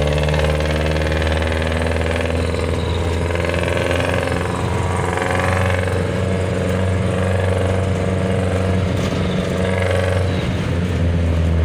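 Engine of a passenger vehicle running steadily under way, heard from inside the crowded cabin, with a constant low rumble.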